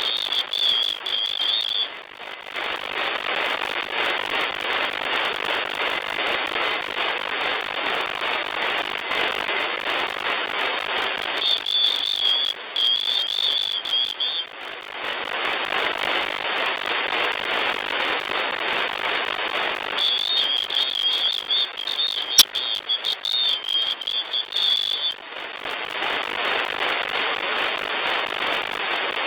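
Shortwave receiver static: steady hiss of HF band noise from an SDR tuned to the 40 m amateur band between transmissions. Three times a high warbling tone rides over the hiss for a few seconds, and a single click sounds a little after the middle.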